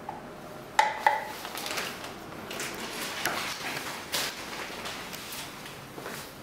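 Handling noises on a manual single-punch tablet press: two sharp knocks about a second in as the clear plastic powder hopper is set in place, then irregular lighter clicks, taps and rustling.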